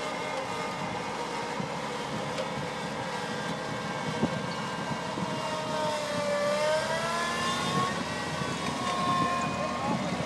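Datsun A12 four-cylinder engine of a mini Caterpillar Challenger crawler running steadily while the crawler pulls a potato plow through soil. About halfway through, the engine note sags, then climbs back up.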